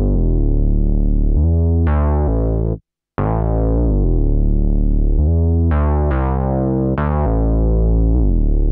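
Minimoog Model D analogue synth playing a funk bass line of long, low held notes. Each note starts bright and then dulls as the filter closes, with the sustain level turned up for more tone. The sound cuts out completely for a moment about three seconds in.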